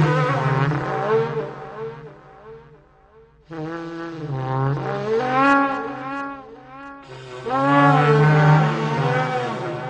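Trumpet-like sky sound of the kind reported in the 'strange sounds' recordings. A steady low hum sits under long, wavering horn-like tones that swoop up and down in pitch. It fades out about three seconds in and starts again half a second later.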